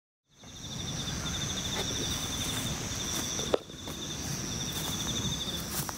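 Insects trilling steadily in two high continuous tones, one of them pulsing rapidly, over a low rumbling background; the sound fades in from silence just after the start. A single sharp knock is heard about three and a half seconds in.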